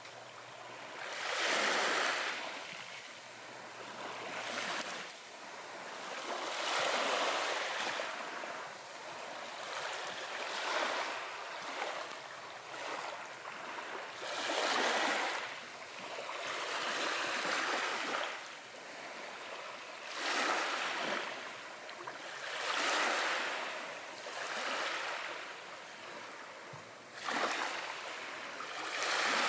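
Small waves washing onto a beach one after another, each a hissing surge that swells and fades every two to three seconds.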